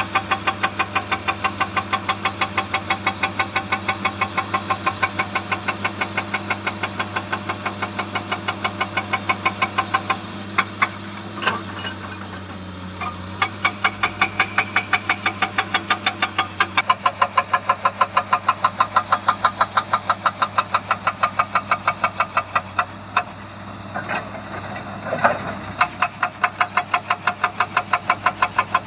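Hydraulic rock breaker on a Komatsu excavator hammering in rapid, evenly spaced blows, about four a second, over the excavator's steady engine hum. The hammering breaks off twice, once near the middle and once about three quarters through, with only a few single blows before it resumes.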